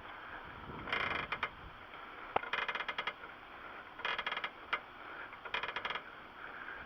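Hydraulic floor jack being pumped to lift an SUV: four handle strokes about a second and a half apart, each a short creaking, clicking rattle.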